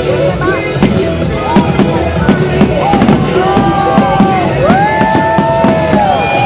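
Fireworks show: a dense run of bangs and crackles over loud music.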